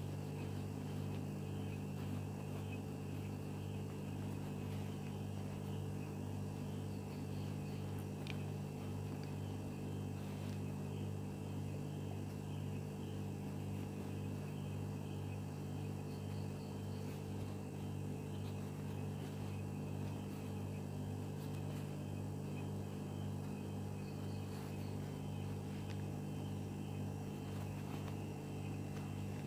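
A steady low hum, with a few faint clicks and rustles of fabric being handled.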